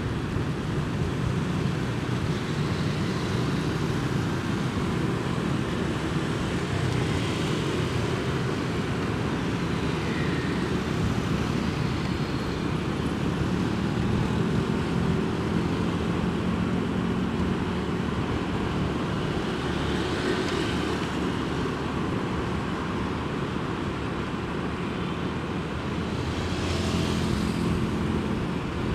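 Steady traffic noise heard from a motorbike riding among many other motorbikes: a constant low engine hum and road noise, with passing vehicles swelling up and fading away a few times.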